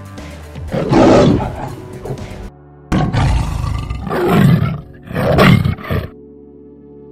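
Big-cat roar sound effects for a cartoon tiger: three roars, the middle one the longest, over background music that carries on alone after the last roar near the end.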